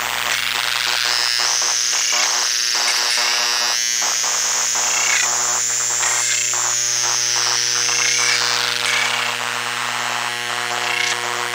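Circuit-bent hard drive motors driven by control voltage, their electromagnetic noise picked up by induction coils: a high whine that rises about a second in, steps higher, then sinks away near the end. Under it run steady hum tones and a rapid, stuttering, clicking buzz.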